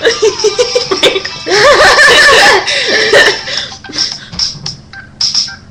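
Two girls laughing loudly, then a phone ringtone playing a run of short, high, repeated notes through the phone's small speaker.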